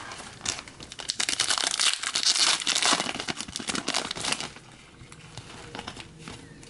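Foil trading-card pack wrapper crinkling as it is torn open and handled, a dense run of crackles that is strongest over the first few seconds and then dies down to quieter handling noise.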